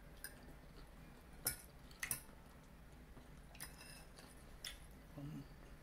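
Metal fork clinking and scraping against a plate in a handful of short, sharp taps while lo mein noodles are picked up. Near the end there is a brief low hum of the voice.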